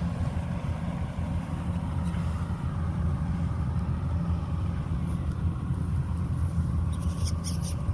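Kubota DC-105X diesel combine harvester running steadily with a low drone. Near the end a quick patter of sharp clicks or crackles joins in.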